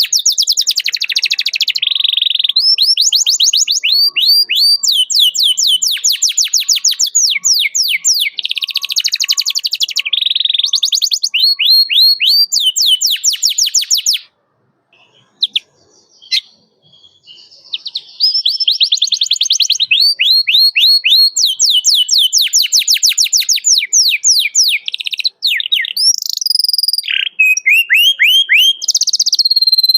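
Domestic canary singing: long, fast trills of rapidly repeated high notes, each sweeping downward, in rolls. The song breaks off for a few seconds about halfway through, then starts again.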